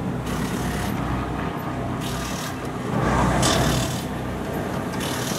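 NASCAR Truck Series Chevrolet Silverado race truck's V8 engine running at low speed as the truck rolls slowly, swelling louder briefly about three seconds in.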